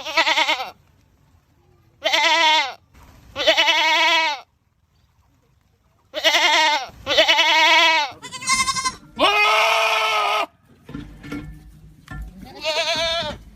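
Goats screaming: a string of about eight loud, wavering, drawn-out bleats, several coming back to back. Each cry lasts from under a second to over a second.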